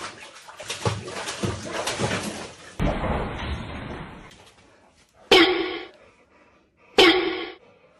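Water splashing and sloshing in a bath tub as a boxer dog is lowered into it and struggles. Near the end the dog gives two loud, short, pitched cries about a second and a half apart, protesting at the bath.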